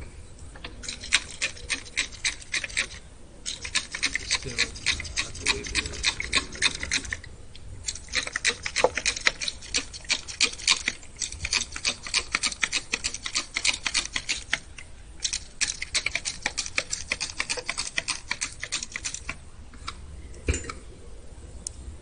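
Plastic trigger spray bottle squeezed over and over, misting water onto soil in coir seed pots. It makes fast runs of spritzes lasting a few seconds each, with short pauses between the runs.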